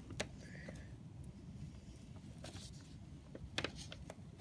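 A few faint, sharp clicks and light handling noises from the dissecting tools, the strongest just after the start, while the opened bird is probed for more organs.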